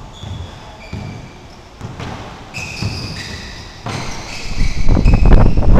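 A basketball bouncing on a hardwood gym floor, with sneakers squeaking on the boards. About four and a half seconds in, a loud low rumbling noise comes in and drowns out the rest.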